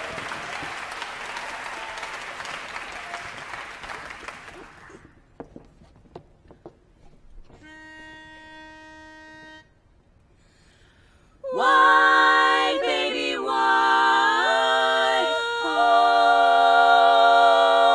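Applause dying away, then a pitch pipe sounding one steady note for about two seconds to give the key. A female barbershop quartet then starts singing close-harmony chords a cappella, the loudest part, lasting through the final third.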